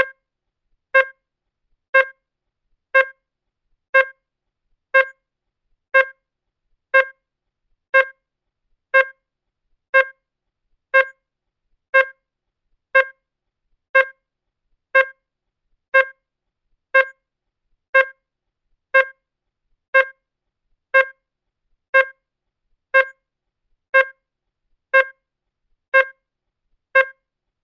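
Digital clock ticking once a second: a short, sharp pitched tick each second, evenly spaced, with silence between.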